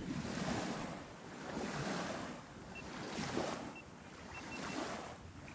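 Small waves lapping and washing up onto a sandy shore, surging about every second and a half, with wind.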